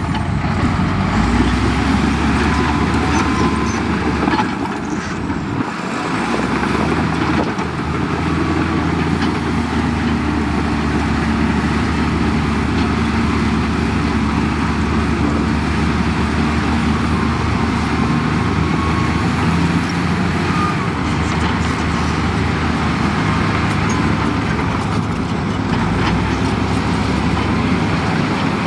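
Heavy diesel engine of road-construction machinery running steadily under work, with a brief drop in level about five seconds in.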